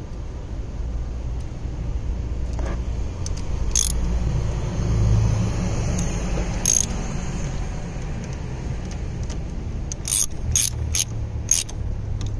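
Ratchet wrench tightening the nut on a car battery's positive terminal: a few sharp metal clicks, with a quicker run of them near the end, over a steady low rumble.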